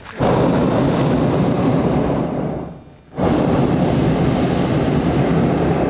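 Hot-air balloon propane burner firing in two long blasts of about two and a half seconds each, with a brief break about three seconds in.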